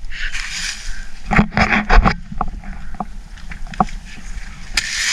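A small hand garden tool digging into soil and dead leaves: a run of irregular scrapes and knocks, thickest from about a second and a half to two seconds in.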